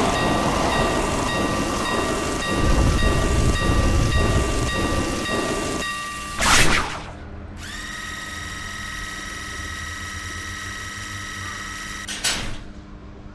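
A train running past a railway level crossing while the crossing's warning bell rings with steady pulsing tones; the bell stops about six seconds in. After a short loud burst, a steady electronic tone in several pitches holds for about five seconds, and another short burst comes near the end.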